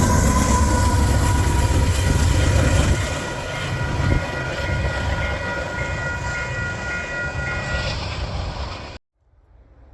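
Freight train passing behind GE diesel locomotives, their multi-chime air horn sounding a sustained chord over heavy rumble. The rumble eases about three seconds in. Near the end the sound cuts off abruptly.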